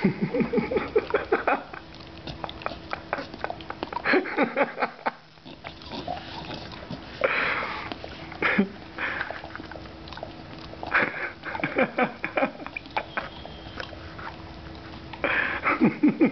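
A beagle licking sticky dulce de leche off its lips and nose, making wet tongue-smacking sounds in bursts of rapid clicks about five times, with short pauses between them.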